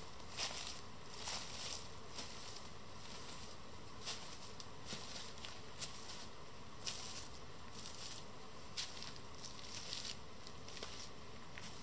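Scattered sharp crackles of dry fallen leaves, irregular and about one every half second to a second, over a steady faint hiss.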